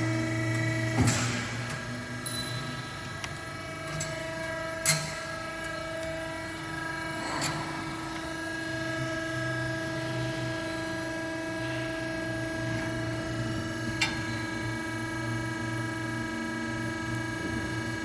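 Hydraulic CNC busbar processing machine running with a steady humming drone from its motor and pump. A few sharp clanks come through it, about four in all, the loudest about five seconds in.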